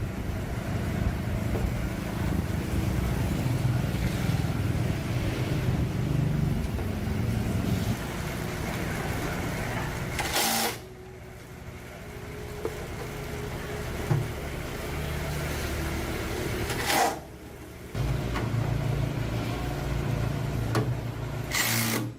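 Small motorcycle engine running with a steady, pulsing low rumble, in several shots joined by abrupt cuts; it drops to a quieter, thinner sound for a few seconds in the middle before the rumble returns.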